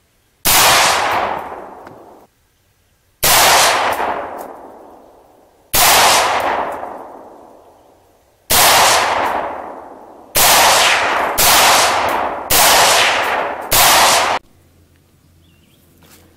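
Eight AR-15 rifle shots, each a sharp crack with a long echoing tail. The first four come about two and a half to three seconds apart, the last four about a second apart.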